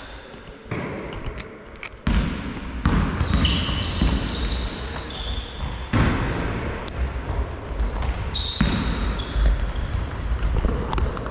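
Basketball game on a sports-hall court: the ball bouncing and players' sneakers giving several short high squeaks on the floor, with players' voices.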